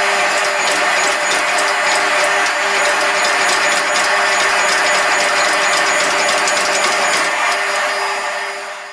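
A machine running steadily with a fast ticking rattle, fading out near the end.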